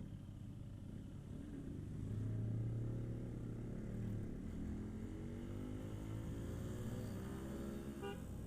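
Yamaha RX King's two-stroke single-cylinder engine running while the motorcycle is ridden, its pitch climbing steadily through the second half as it accelerates.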